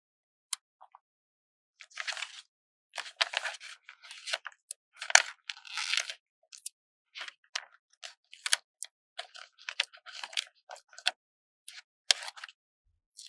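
A sticker being slowly peeled off its backing sheet by hand: irregular crackling and rustling in short spurts, with small sharp clicks, the densest stretch about five to six seconds in.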